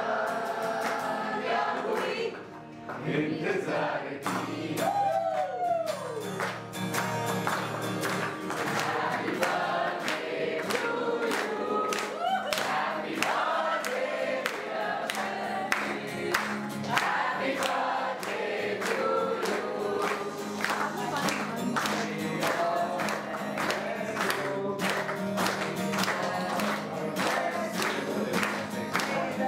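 A group of people singing together, with rhythmic hand-clapping in time and an acoustic guitar accompanying.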